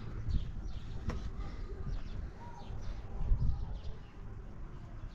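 Scattered bird chirps over a steady low rumble, with a single sharp knock about a second in.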